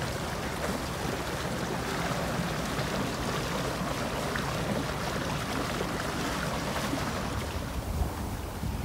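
Steady rush of wind and waves on open, choppy water. Near the end, gusts buffet the microphone.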